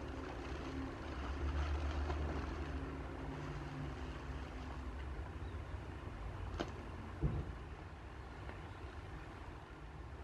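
Plastic bubble wrap rustling and crinkling as it is handled, with two sharp clicks a little past the middle. A low rumble runs underneath, strongest in the first few seconds.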